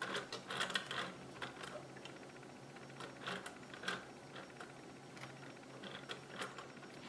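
Plastic parts of a 3D-printed manual transmission model clicking and rattling as it is handled and its gears and shift collars are moved by hand: irregular light clicks in small clusters, densest in the first second.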